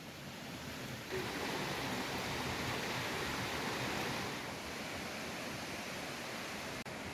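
A stream's water rushing steadily, growing louder about a second in.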